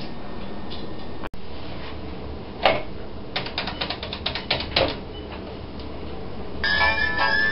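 About a dozen quick clicks of buttons being pressed, like a phone number being dialed on a keypad. Music starts near the end.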